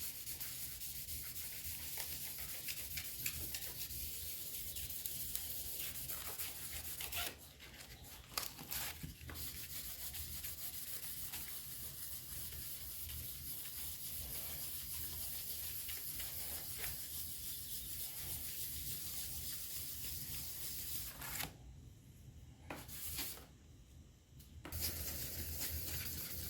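2000-grit wet/dry sandpaper on a sanding block rubbing over hardened clear coat in steady strokes, a continuous hiss, knocking down orange peel. The sanding stops briefly about a quarter of the way in and again a couple of times near the end.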